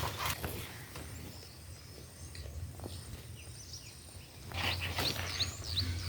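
Low outdoor background noise, with a bird giving a quick run of short, rising chirps near the end.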